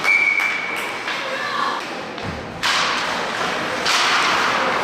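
Ice hockey arena sound: a single steady high whistle tone for about a second at the start, typical of a referee's whistle stopping play. Then thuds and a sudden swell of crowd noise a little past halfway.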